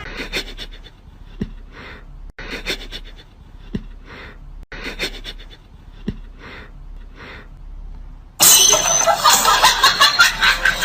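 Rhythmic heavy breathing or panting, one short, breathy stroke a little over once a second, then a sudden much louder burst of dense rushing noise near the end.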